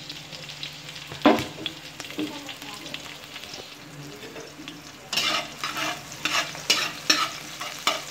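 Chopped chilies sizzling faintly in hot oil in a large wok, with one sharp knock about a second in. From about five seconds in, a spatula scrapes and stirs them against the wok in repeated strokes.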